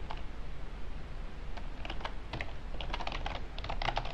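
Typing on a computer keyboard: a single keystroke at the start, then after a pause of about a second and a half, quick runs of keystrokes.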